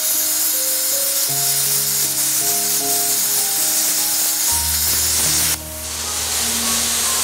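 Background music of shifting melodic notes over a steady high hiss like a plasma cutter's arc cutting metal; the hiss stops about five and a half seconds in, leaving the music.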